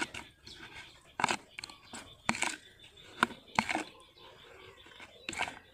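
Metal spoon scraping and tapping against a plastic basin while shrimp paste is mashed and dissolved in water, a short sharp click about every half second.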